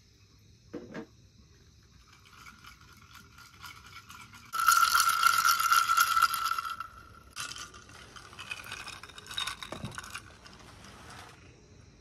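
Ice cubes rattling and clinking inside a glass tumbler as it is swirled, loudest for about two seconds near the middle with a ringing glass tone, then a few lighter clinks. A soft knock about a second in.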